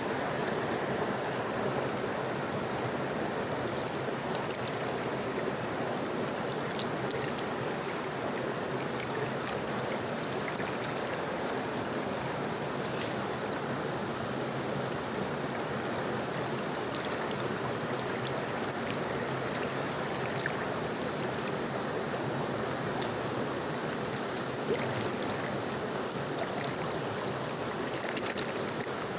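Rushing water of a stream or waterfall, a steady unbroken rush.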